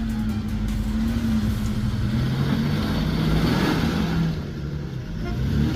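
Off-road 4x4's engine running steadily under load, its pitch dropping about two seconds in and then holding lower.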